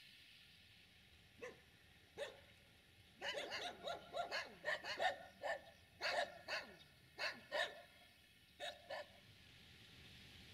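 A dog barking: a long run of short barks in irregular bursts, starting about a second and a half in and stopping about nine seconds in.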